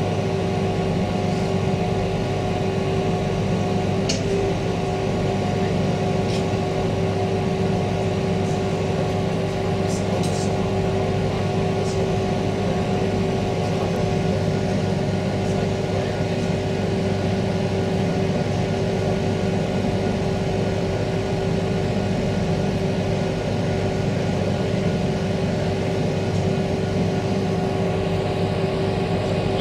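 Steady interior noise inside a passenger car of a Queensland Rail EMU electric multiple unit: an even hum with several constant whine tones that hold their pitch, and a few faint clicks.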